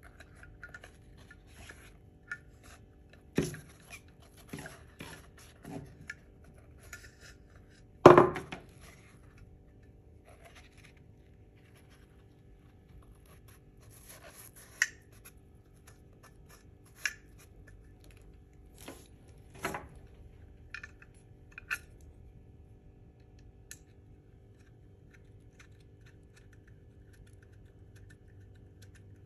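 Table lamp base and stem being handled and fitted together by hand: scattered clicks, taps and light knocks, the loudest a sharp knock about eight seconds in, over a faint steady hum.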